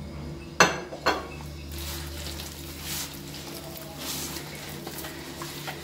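A hand mixing flour and water into bread dough in a plastic basin: soft squishing and scraping, with two sharp knocks against the basin about half a second apart, the loudest sounds, in the first second or so.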